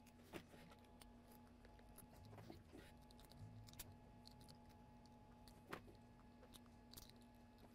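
Near silence: a steady faint hum with about five small clicks and snaps of hand tools working the hard plastic shell of a USB flash drive.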